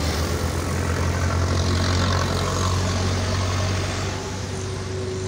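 A motor engine running steadily with a low, even hum, easing slightly about four seconds in.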